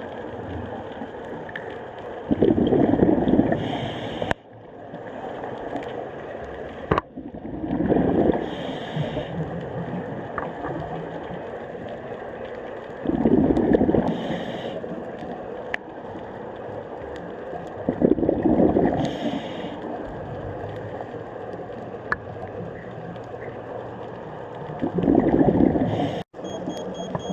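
Scuba diver breathing through a regulator, heard underwater: five loud bursts of exhaled bubbles about five seconds apart, with a steady low hiss between them.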